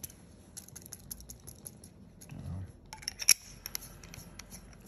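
Small clicks and light taps of a fountain pen and its ink converter being handled while air bubbles are worked out of the ink chamber, with one sharper click a little past the middle.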